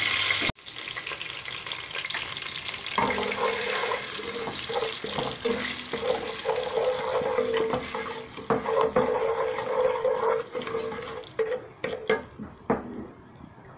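Whole green cardamom pods sizzling in hot oil in an aluminium pot. From about three seconds in, a wooden spoon stirs and knocks against the pot.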